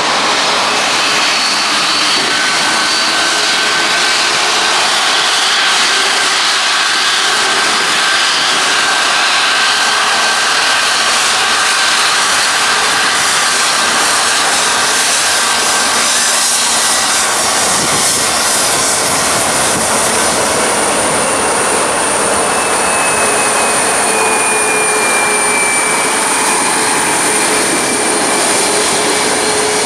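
Boeing 737 turbofan engines running as the jet taxis onto the runway: a loud, steady rush of jet noise with high whining tones over it, one of which slides down in pitch in the second half.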